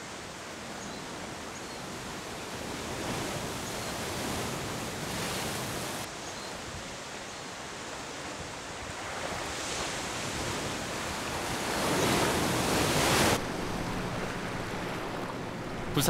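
Sea waves washing in, a rushing noise that swells and ebbs several times, with abrupt changes about six and thirteen seconds in.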